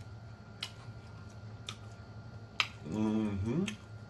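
Wet mouth clicks and smacks while chewing fried chicken, three sharp ones, the last the loudest. About three seconds in comes a hummed 'mmm' of enjoyment that rises and falls.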